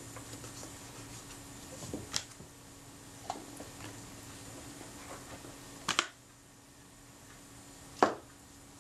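Small metal camera shutter parts and the shutter housing handled on a paper-covered bench: light clicks and taps, with a louder double knock about six seconds in and the loudest knock about eight seconds in. A faint steady hum lies underneath.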